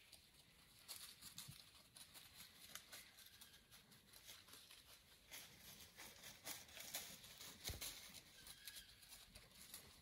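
Near silence with faint, irregular rustling and crackling of dry leaves, and a soft thump about three-quarters of the way through.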